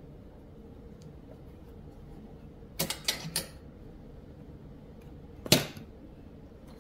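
Three quick sharp clicks in a row about three seconds in, then a single louder click a couple of seconds later, over quiet room tone; small objects being handled or set down on a work surface.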